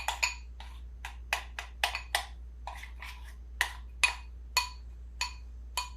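A spoon repeatedly knocking and clinking against the side of a mixing bowl while stirring confectioners' sugar into creamy peanut butter. The sharp ringing clicks come at an uneven pace, about three a second.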